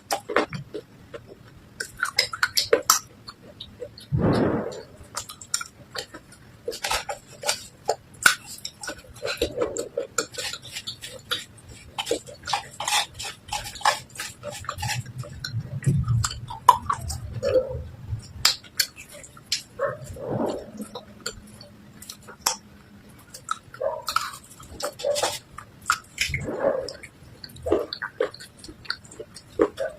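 Continuous crunching and crackling of soaked clay and slate pieces being crushed, dense short crisp cracks with a few duller thumps in between.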